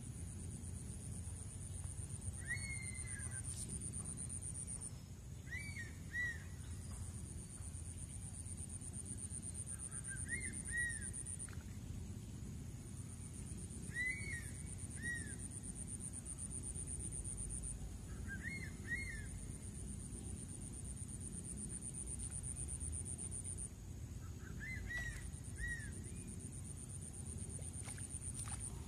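A bird calling again and again, short arched notes in twos and threes every few seconds, over a steady high buzz that breaks off now and then and a low outdoor rumble.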